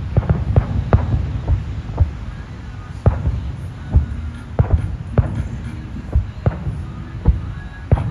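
Fireworks bursting at a distance: a rapid, irregular series of sharp booms, about two a second, over a steady low rumble.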